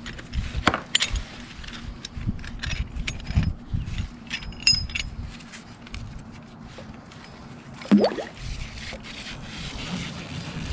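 Small metal folding kayak anchor clinking and knocking as it and its rope are handled, with many light scattered clicks. One louder sharp sound about eight seconds in.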